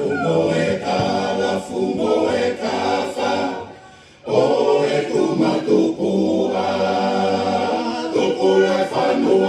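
Voices singing a traditional Tongan lakalaka song in a choir-like, unaccompanied style. The singing fades to a brief pause about four seconds in, then comes back in.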